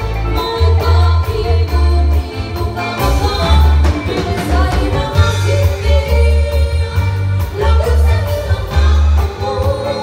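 Live band playing a song through a PA system: two women singing into microphones over electric guitar, bass guitar, keyboard and drums, with a heavy, pulsing bass.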